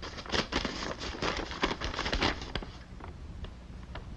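Paper rustling and crackling as a document is unfolded and handled, a quick run of crinkles that thins out after about two and a half seconds.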